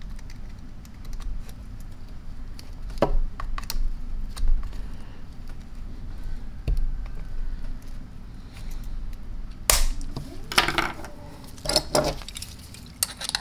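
Small metal clicks and scrapes of a pocket screwdriver prying at the spring-locking tabs inside the handle of an Ingersoll-Rand 2131 air impact wrench, working to release the throttle valve assembly. Scattered single clicks, then a quick group of louder knocks and rattles near the end as the gun is shifted in the hand.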